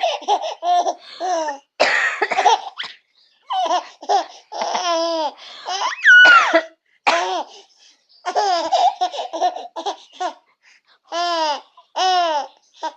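A baby laughing in repeated short, high-pitched bursts, with a woman's coughs between them that set the baby off laughing. About six seconds in the baby lets out a high squeal that falls in pitch.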